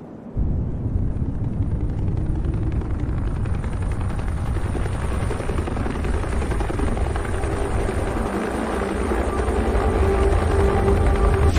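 Helicopter rotor and turbine engine noise that starts suddenly about half a second in and runs steadily, growing a little louder near the end as the helicopter comes in close to land in the snow.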